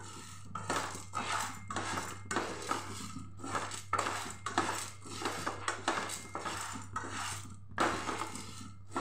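Dry chana dal and urad dal rattling and scraping against a nonstick frying pan as a spatula stirs them, about two strokes a second, while the lentils are dry-roasted. A steady low hum runs underneath.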